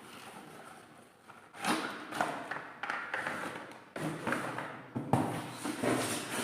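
A toy's packaging being opened and handled: rustling and scraping with several light thumps and taps, starting about a second and a half in.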